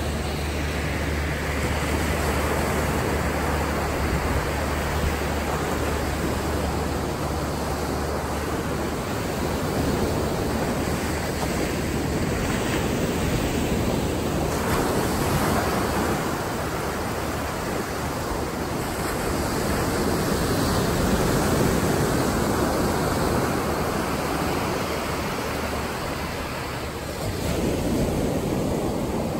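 Atlantic surf breaking and washing up the sand at the shoreline: a steady rush that swells and eases as each wave comes in. A low steady hum sits underneath for roughly the first third.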